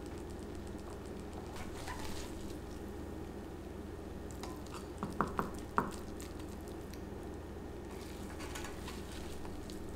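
Wooden spatula scooping soft chicken-and-rice casserole from a cast-iron pan into a ceramic bowl: quiet scraping and squishing of the food, with four light ceramic clinks in quick succession just after the middle.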